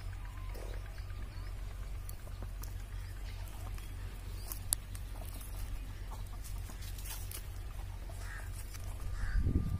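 Hens clucking now and then over a steady low hum, with a brief louder low rumble near the end.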